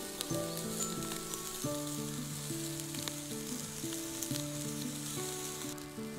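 Thin slices of beef tongue sizzling on a wire grill over charcoal: a steady hiss with scattered small pops, easing off near the end. Background music with a simple stepping melody plays throughout.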